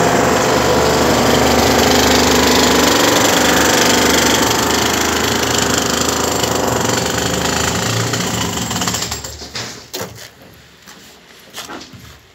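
Electric demolition hammer breaking concrete, running steadily and loud, then stopping about nine seconds in. After it stops there are a few scattered sharp knocks.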